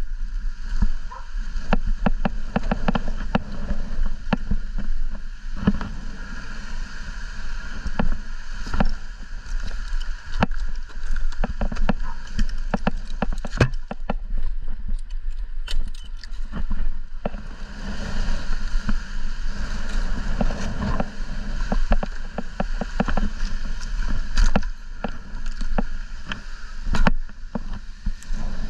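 Wind rumbling and buffeting on the microphone, with frequent sharp clicks and knocks.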